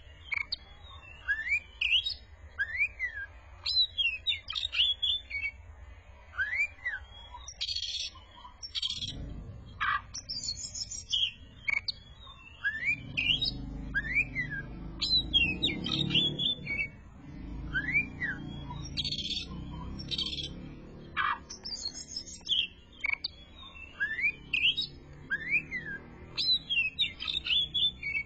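Oriental magpie-robin (kacer) singing: short phrases of clear rising-and-falling whistles and sharp chips, repeated every two to three seconds. A low rumble runs under the song through the middle.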